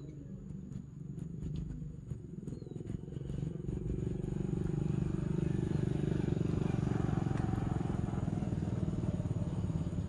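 A motor vehicle's engine, growing louder over about five seconds and then running steadily. A bird chirps faintly early on.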